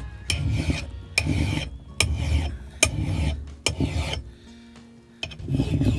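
Hand file rasping along an axe blade's edge in repeated sharpening strokes, about one a second, with a short pause shortly after the fourth second.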